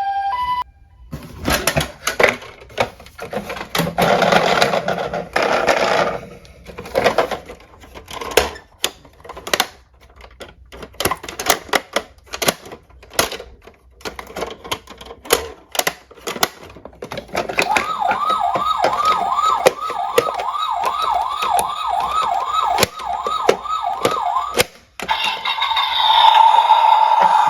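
Small diecast toy cars clicking and clattering on a hard surface, with a short rattling run. About two-thirds of the way through, an electronic siren starts, wailing upward two or three times a second. Near the end it changes to a steadier warbling tone.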